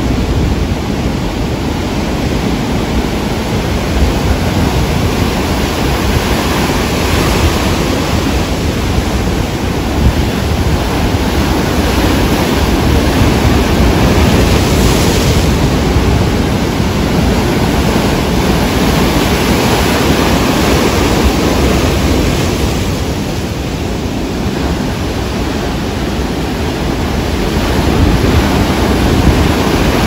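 Rough sea surf breaking and rushing up the shore in a loud, continuous wash of waves. It swells in the middle, eases about three-quarters of the way through, then builds again near the end.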